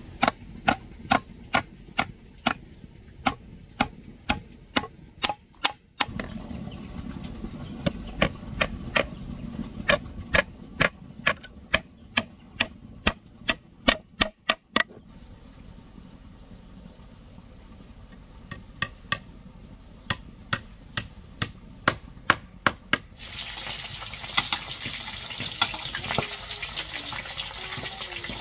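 Knife chopping on a cutting board: sharp, even strokes at two to three a second, in runs of several seconds. About five seconds before the end the chopping stops and a steady hiss starts.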